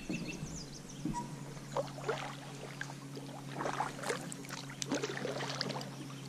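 Kayak paddle dipping and splashing in still swamp water, irregular clusters of splashes and drips every second or so, over a faint steady low hum.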